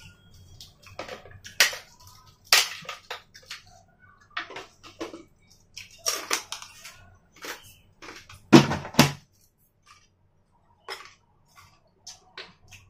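Fried shrimp crackers (krupuk) being bitten and chewed close to the microphone: irregular crisp crunches, the loudest a little over eight seconds in.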